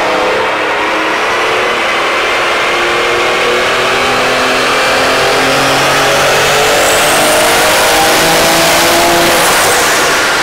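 A modified 2005 Dodge Ram 2500's Cummins inline-six turbo-diesel, with compound turbochargers and nitrous, making a loud full-throttle pull on a chassis dyno, with a high whistle rising in pitch partway through. This is the run that put out over 2,000 lb-ft of torque.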